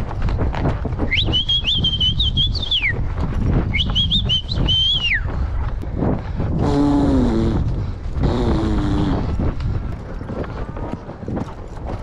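A cattle drover whistling and yelling to push cows along: two long, warbling whistles in the first five seconds, then two short yells. Underneath runs the constant thudding of a galloping mount's hooves and wind on the microphone.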